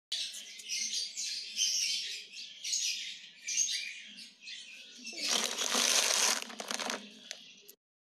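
A crowd of small birds chirping and chattering in quick high calls, with a louder burst of rustling lasting about a second, some five seconds in.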